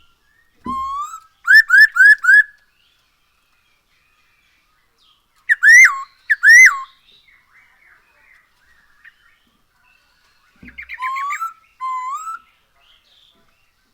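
Masked laughingthrush (poksay hongkong) singing loud, upward-gliding whistled notes in three phrases: a quick run of four or five notes about a second in, two loud notes near the middle, and a softer run near the end.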